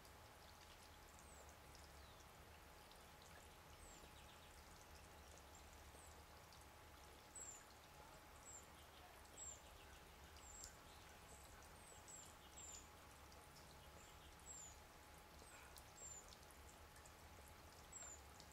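Cedar waxwings calling: faint, very high, thin whistles, each a short downward slide, coming about once a second.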